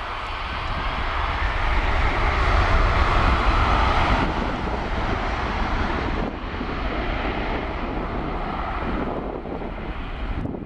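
Boeing 767's twin turbofan engines at takeoff thrust during the takeoff roll, heard from behind: a deep rumble under a broad jet hiss. Loudest in the first four seconds, then it drops in level in two sudden steps as the aircraft pulls away.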